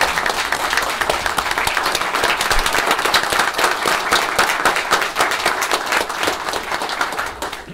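Audience applauding: dense, steady clapping from a roomful of people that dies away near the end.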